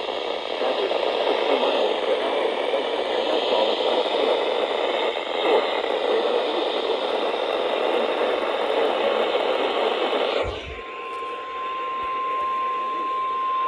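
Radio static hiss for about ten seconds, then a click and a single steady high-pitched tone that holds: the NOAA Weather Radio warning alarm tone that comes before a warning message.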